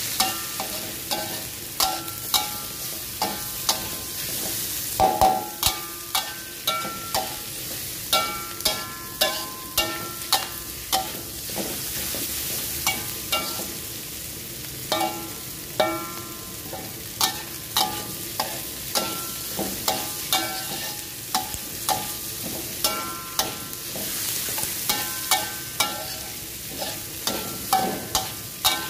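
Metal spatula repeatedly scraping and knocking against an aluminium wok, each strike ringing briefly, over a steady sizzle of sliced shallots, ginger and chillies frying in hot oil.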